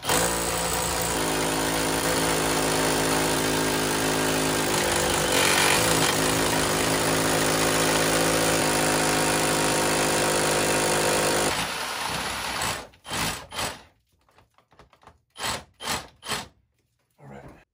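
Milwaukee rotary hammer drill with a 3/4-inch bit boring through a house wall, running steadily for about eleven seconds and then winding down. A few short knocks follow near the end.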